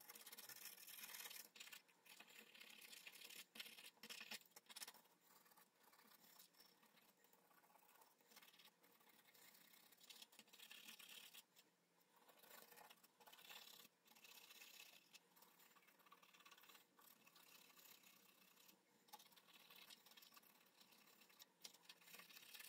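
Faint scraping, rubbing and clicking of plastic as the third brake light's clear plastic housing and LED strip board are handled, with a slightly louder spell of scratching in the first few seconds.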